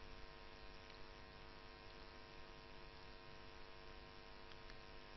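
Near silence: a faint, steady electrical hum in the recording line, under a low hiss.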